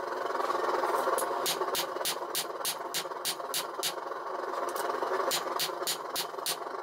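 Hand hammer striking a red-hot steel knife blade on an anvil in quick, even blows, about three a second. The blows begin about a second and a half in and pause briefly near the middle, over a steady noise.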